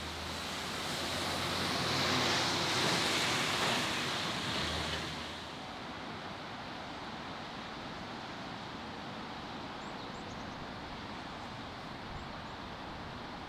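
A vehicle passing: a rushing swell of tyre and road noise over a low engine hum builds over the first few seconds and drops away about five seconds in. After that there is steady outdoor background noise.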